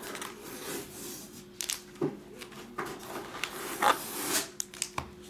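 Foil-wrapped trading-card packs rustling and clicking as they are pulled out of a cardboard box and set down in a stack, with a louder crinkle about four seconds in and a few sharp ticks just after.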